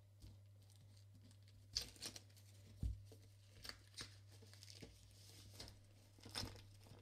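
Plastic shrink-wrap being peeled and torn off a cardboard laptop box: a faint scatter of short crackles and taps as the film comes away.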